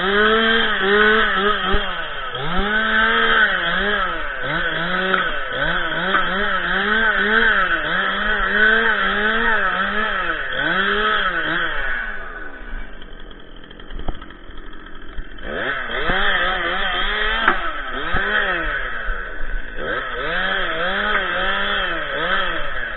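Stihl MS 261 two-stroke chainsaw revving up and dropping back about once a second as it cuts through branches of a felled tree. It falls back to idle about halfway through, then revs in short bursts again.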